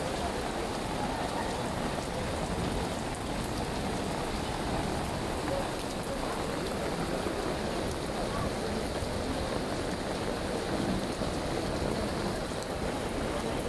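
Steady rain falling on wet paving.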